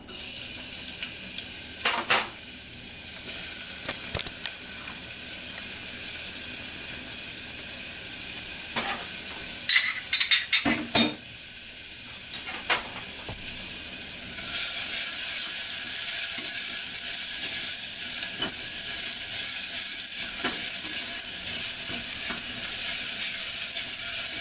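Chopped garlic, ginger and shallots sizzling in hot vegetable and sesame oil in a small stainless steel saucepan as they start to brown. A few knocks and clinks of a utensil against the pan come about two seconds in and again around ten seconds in. The sizzle grows louder a little past halfway.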